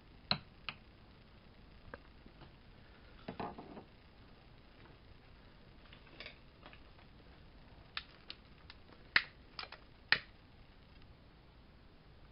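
Sparse light clicks and knocks of small household objects being handled: a ceramic tea mug and a long wand candle lighter on a wooden dresser. The sharpest clicks come in a cluster about eight to ten seconds in, with a brief rustle a little after three seconds.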